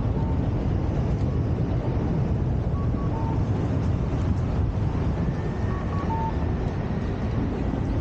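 Steady city street noise, mostly a low traffic rumble, with short high beeps every few seconds, often in pairs.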